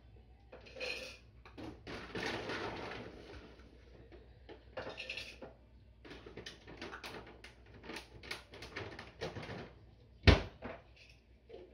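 A cat eating minced meat from a bowl: irregular wet chewing and lapping with small clicks against the bowl, and one sharp knock about ten seconds in.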